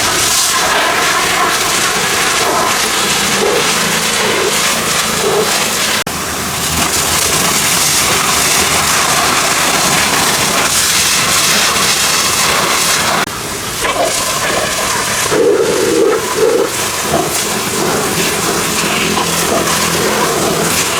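Pressure washer spraying a jet of water onto a car, a loud steady hiss that dips briefly twice.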